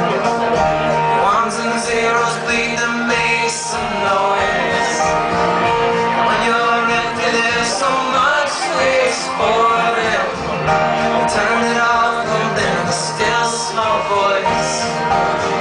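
Live folk music heard from within the audience: a man singing over acoustic guitar with orchestral backing.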